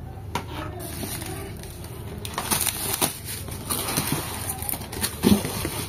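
Rustling and crinkling of plastic and bubble-wrap packaging, with scattered light clicks and knocks as parts of the grinder kit are handled and set down on a hard floor.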